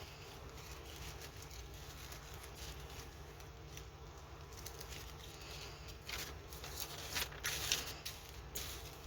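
Small plastic bags of diamond painting crystal drills rustling and crinkling as they are handled, with the handling loudest about six to eight seconds in, over a steady low hum.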